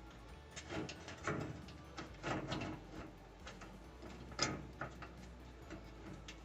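Irregular small clicks and clatters of bolts being fitted by hand into a washer's lid switch assembly, with one sharper click a little over four seconds in.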